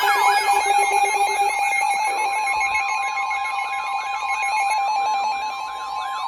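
Electronic emergency alert tones: several steady beeping tones layered under a fast warbling tone that sweeps up and down about three times a second.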